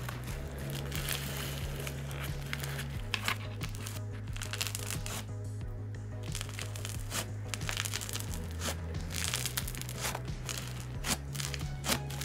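Tightly packed snow fizz slime being stretched and squeezed, giving many small crunchy crackles, over background music with a slow bass line.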